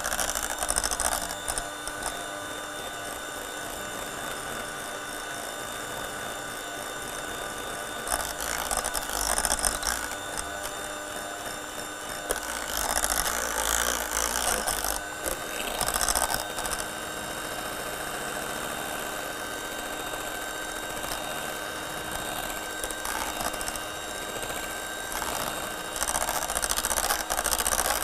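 Electric hand mixer running steadily, its two beaters whipping cream in a stainless steel saucepan. Louder rattling and scraping of the beaters against the pan comes and goes several times.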